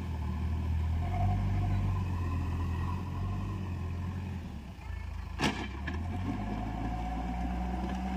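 Backhoe loader's diesel engine running under load as it pushes soil with its front bucket. It is louder for the first few seconds, then eases to a steady hum. A single sharp knock comes about five and a half seconds in.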